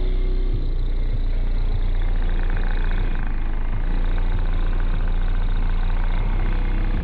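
Bass-heavy music played loud through a truck's car audio system of four 15-inch DD subwoofers, deep sustained bass notes that change pitch every few seconds.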